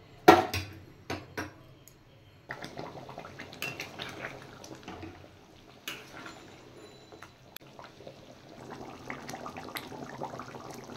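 Flat metal spatula clanking and scraping against a metal kadai while stirring a thin chicken curry, a few sharp clanks in the first second and a half, the first the loudest. Then the watery curry sloshing and bubbling as it is stirred and simmers, with small clinks of the spatula.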